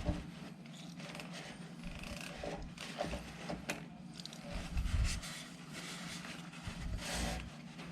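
Handling noises at a dishwasher's door hinge: scattered clicks and scrapes, with a few dull knocks about halfway through and near the end, over a steady low hum.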